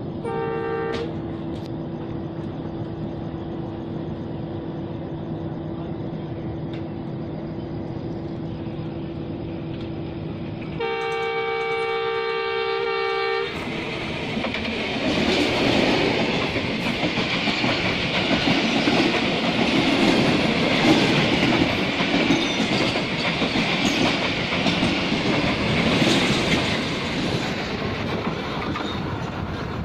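A train horn sounds a short blast, then a longer blast of about two and a half seconds, over the steady running of the train. Then an oncoming train's locomotive and carriages pass close alongside on the next track, with loud rumbling and wheel clatter.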